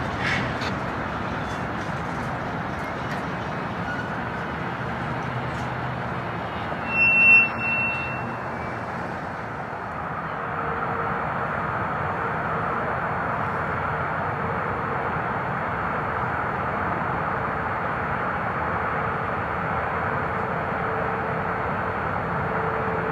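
Freight cars of a switching move rolling slowly on the track, a steady noise, with two short high-pitched squeals about seven seconds in.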